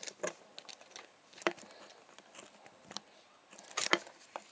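Small sharp metallic clicks and taps from a lock pick working in the keyway of a Yale 50 mm brass padlock, irregular, with a louder click about a second and a half in and a quick cluster near the end.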